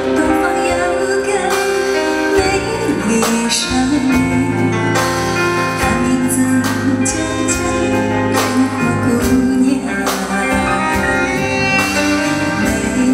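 Female vocalist singing a Mandarin pop song live into a handheld microphone, backed by a live band with keyboard and percussion.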